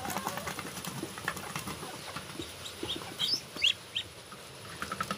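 Domestic geese feeding from a metal pan of rice, their bills clicking and tapping rapidly against the pan. A few short, high, rising chirps from the poultry come around the middle.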